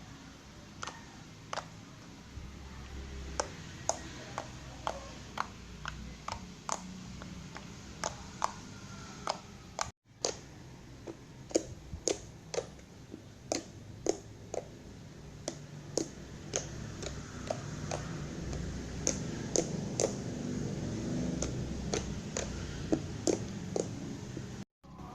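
Slime being pressed and poked, giving sharp clicks and pops about one to two a second over a low, steady background, with a brief break about ten seconds in.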